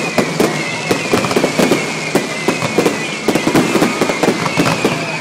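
Aerial fireworks display: a rapid, irregular barrage of bangs and crackles, over which high whistles slowly fall in pitch, several in turn.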